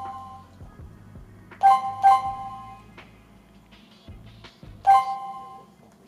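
Touch keypad of a CS108 WiFi/GSM home alarm control panel beeping as its keys are pressed. There are short two-tone beeps, two close together about a second and a half in and one near the end, with a few faint clicks between.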